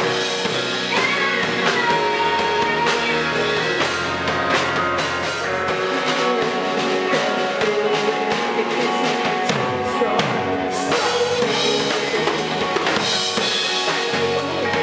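Live rock band playing: electric guitars and bass guitar over a Tama drum kit, with a steady drum beat of bass drum and snare.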